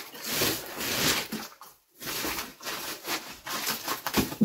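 Clear plastic bags rustling and crinkling as grocery packets are handled and packed into them, in uneven spells with a short break near the middle.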